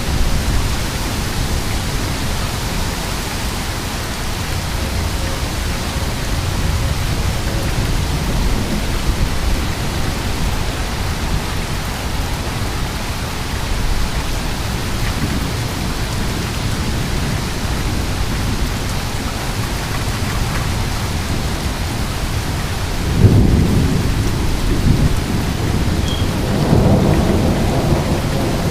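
Heavy rain falling steadily under low rolling thunder. A sudden louder crack of thunder breaks out about 23 seconds in, and another rumble swells a few seconds later.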